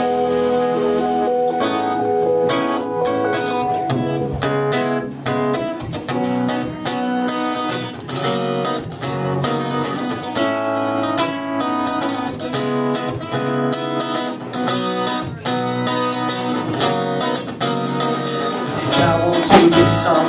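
Live band music led by an acoustic guitar playing a picked and strummed passage. About a second before the end the full band comes back in louder.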